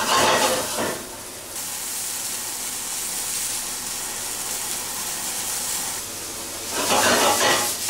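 Chopped mushrooms and onions sizzling in oil in a frying pan over a gas flame as they sweat, a steady hiss. It is louder in the first second and again near the end.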